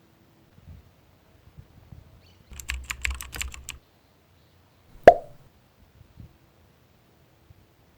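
A quick run of about ten sharp clicks over a little more than a second, with a low rumble beneath them. A single sharp knock comes about five seconds in and is the loudest sound.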